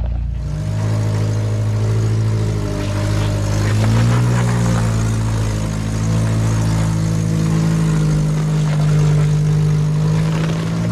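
Off-road vehicle engine running at low revs on a rock trail, with a steady hum whose pitch rises briefly about four seconds in, then settles.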